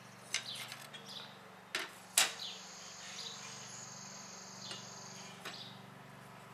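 Steel clutch plates and linings of an Allis-Chalmers power director clutch clinking and clanking as they are lifted off the clutch pack and set down on a steel bench, the sharpest clank about two seconds in. A steady high-pitched whine sounds for about three seconds in the middle.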